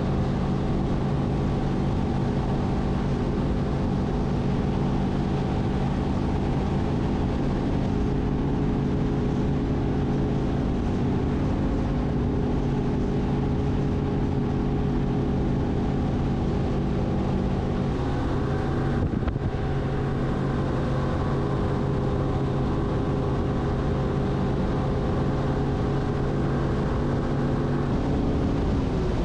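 Bass boat's outboard motor running steadily at speed. The engine pitch steps up slightly about two-thirds of the way through and starts to drop right at the end.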